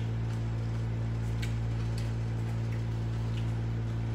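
Steady low electrical hum, with a few faint, scattered clicks of eating: chewing and a plastic fork on a plastic food tub.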